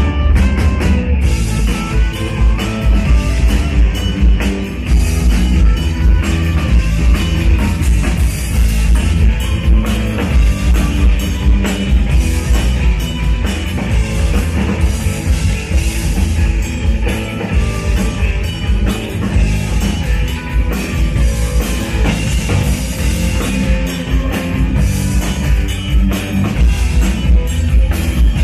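Live band playing loud rock-style music, a drum kit keeping a steady driving beat over electric bass.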